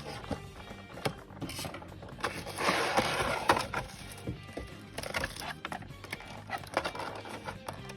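Background music over handling noises from a boxed prize figure being unpacked: scattered clicks and knocks, with a louder rustle of packaging about two and a half seconds in that lasts about a second.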